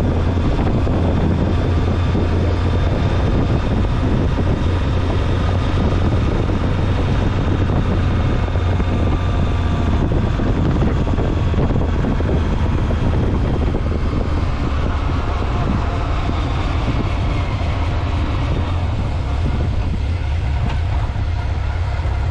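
Honda Nighthawk 750's inline-four engine running under way at cruising speed, with wind noise over the microphone. The engine note eases down a little past the middle.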